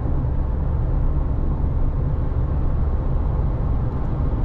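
Steady low road and engine rumble heard inside the cabin of a Fiat Pulse 1.0 turbo cruising on the highway at about 100–120 km/h.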